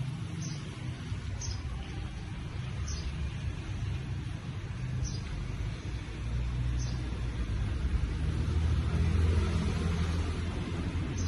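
Steady low rumble, swelling a little toward the end, with a few short high bird chirps a second or two apart.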